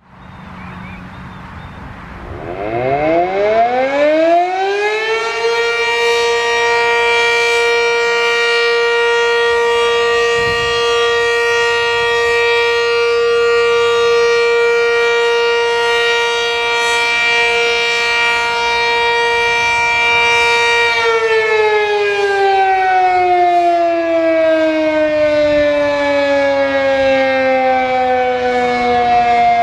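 Sentry 3V8-H electromechanical fire siren on a test run. It winds up in pitch about two seconds in, holds a steady wail for about fifteen seconds, then winds down with slowly falling pitch.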